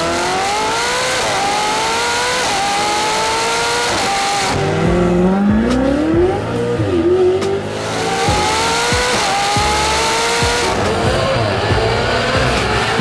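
Ferrari F8 Tributo's twin-turbo V8 through a Novitec stainless exhaust, accelerating hard through several quick upshifts: the pitch climbs through each gear and drops at each shift. There is a brief easing off midway before it pulls through the gears again.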